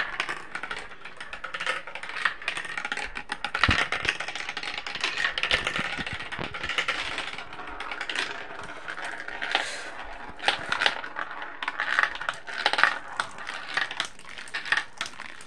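Marbles rolling and clattering through a plastic tube marble run, with many small clicks and rattles and stretches of steady rolling hiss as they circle the funnel bowl.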